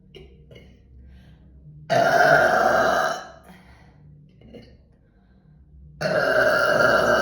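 A woman burping loudly twice, about four seconds apart. Each burp is long, lasting over a second.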